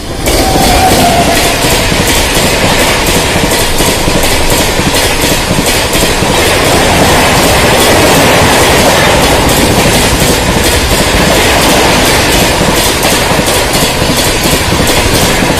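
WAP7 electric locomotive and its coaches passing at speed. The loud, steady rush of wheels on rail starts suddenly as the locomotive reaches the microphone, with rapid clicks of wheels over rail joints throughout and a short high tone about a second in.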